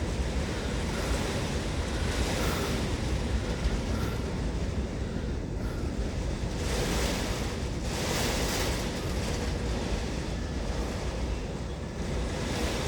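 Severe storm: heavy rain and 60 to 70 mph winds, a steady rushing hiss that swells in several gusts, with wind buffeting the microphone.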